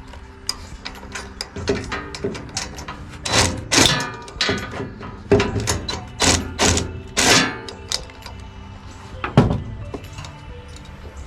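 Irregular metal clinks and knocks of a socket wrench and bolts being worked and handled while the overhead valve cover comes off a small four-stroke engine, several strikes with a brief ring.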